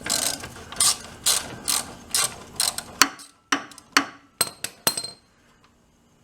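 Ratchet wrench clicking in repeated strokes, about two a second, as it works an engine mounting bolt loose from underneath a go-kart; then a few sharper single clicks, stopping a little after five seconds in.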